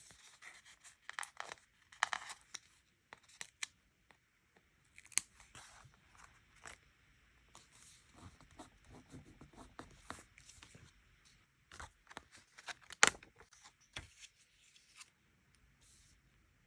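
Stickers and paper being handled for diary decorating: irregular peeling, tearing and rustling, with small clicks and one sharper click about thirteen seconds in.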